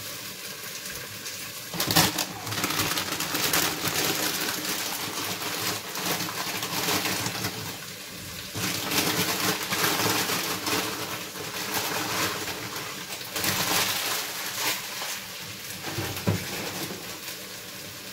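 Sliced carrots, peppers and squash sizzling in oil in a covered frying pan, the hiss swelling and fading. There is a sharp clack about two seconds in and another near the end.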